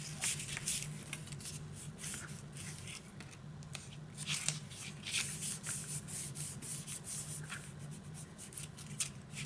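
Hands rubbing and pressing a freshly glued paper piece flat with a paper towel, then handling the cardstock pockets: irregular dry, scratchy rustling strokes. A low steady hum runs underneath.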